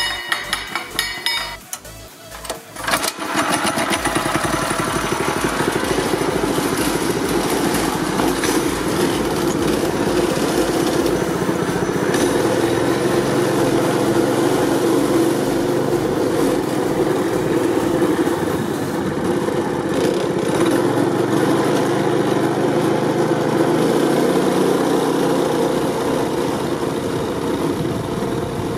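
Predator 212cc single-cylinder go-kart engine fitted with a Stage 1 kit, running loud. It pulses unevenly for the first few seconds, then revs up about three seconds in and runs steadily while the kart drives.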